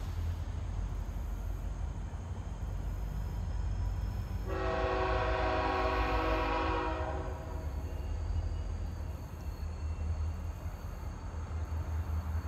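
Diesel freight locomotive's air horn sounding one long blast, a chord of several notes, starting about four and a half seconds in and lasting nearly three seconds, from an approaching CSX double-stack train. A steady low rumble runs underneath.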